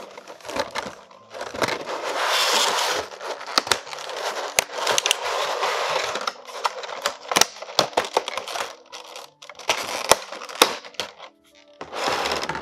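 Clear plastic blister tray crinkling and crackling as hands grip and flex it, in bouts of rustle dotted with sharp clicks and snaps.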